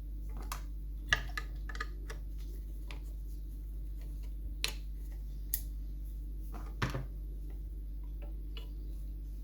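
Scattered small metallic clicks and taps from the parts of a disassembled Union 2134 lever mortice lock being handled. The loudest clicks come about a second in and near seven seconds, over a steady low hum.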